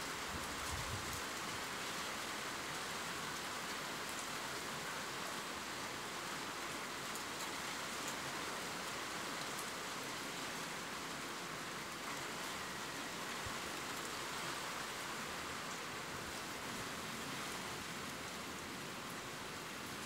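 Steady rain: an even hiss with scattered faint drop ticks.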